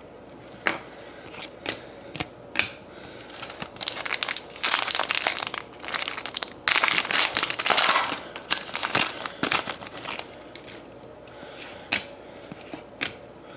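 Plastic card-pack wrapper being torn open and crinkled for a few seconds around the middle, with light clicks and taps of trading cards being handled before and after.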